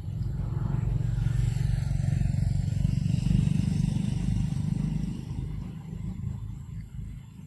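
A motor vehicle passing by off-screen, its engine and road noise swelling to their loudest about three seconds in and fading away after about five seconds.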